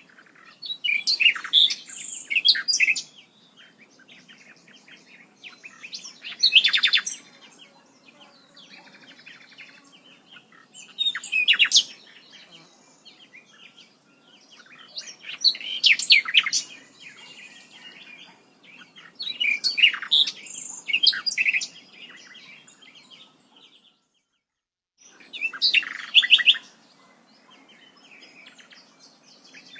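A songbird singing loud phrases of quick, high chirping notes, each a second or two long, repeated about every four to five seconds over faint background sound. The sound cuts out completely for about a second roughly two-thirds of the way through.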